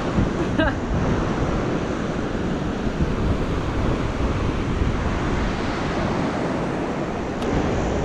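Ocean surf washing onto the beach, mixed with wind buffeting the microphone: a steady, even rush of noise.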